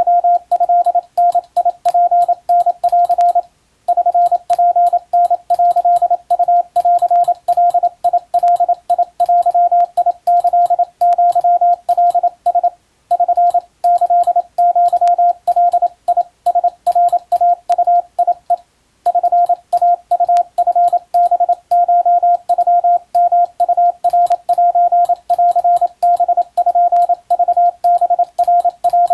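Morse code sent as a single steady beeping tone keyed on and off in dots and dashes, spelling out a Japanese wabun radiotelegram. It breaks off briefly three times between groups.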